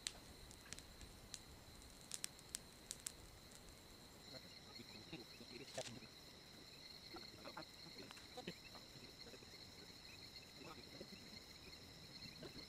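Crickets and other night insects trilling steadily in a high pitch, growing louder about four seconds in, with a few sharp clicks in the first three seconds and faint rustling.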